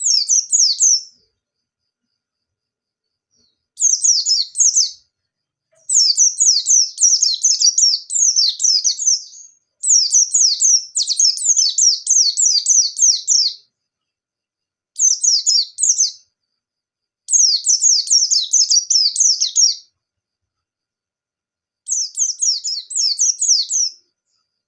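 White-eye (pleci) singing seven phrases of rapid, high, downward-slurred notes. The phrases last from about one to four seconds, with silent gaps between them, in the fast 'nembak' style of a bird in full song.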